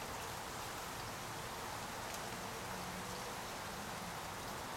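Steady, even hiss of outdoor background noise, with a faint low hum about three seconds in.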